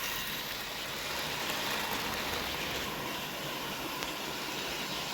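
00 gauge model train running at speed on the layout track: a steady, even rushing hiss of the locomotive's motor and wheels on the rails.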